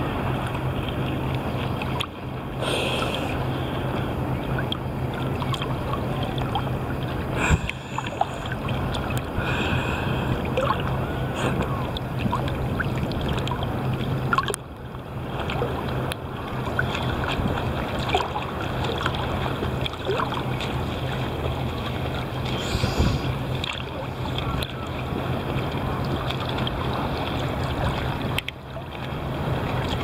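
Ocean water sloshing and splashing against a camera held at the surface by a swimmer, with a steady low hum under it and a few brief drops where the water washes over the microphone.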